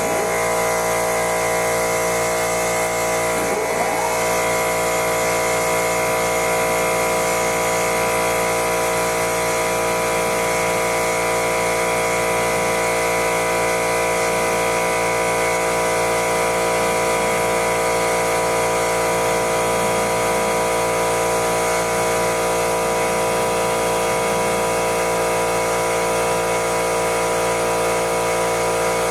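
Metal lathe running at steady speed with its chuck spinning: a constant hum of many steady tones from the motor and gearing, with a brief rising tone about four seconds in.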